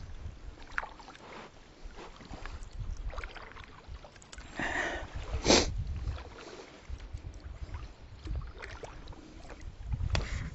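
Kayak paddling: a double-bladed paddle dipping and pulling through calm water in uneven strokes, with low rumbling throughout. There is a hissing splash a little before the middle, then one sharp knock, the loudest sound, about five and a half seconds in.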